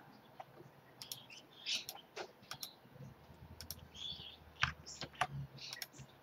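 Faint, scattered clicks of a computer mouse, about eight of them at irregular intervals.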